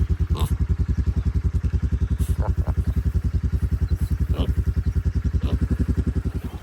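A vehicle engine running with a steady low throb, about eleven pulses a second, with a few light rattles over it. It cuts off suddenly at the end.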